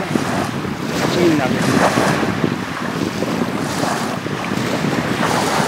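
Wind buffeting the microphone over small waves washing onto a sandy beach, as a steady rushing noise.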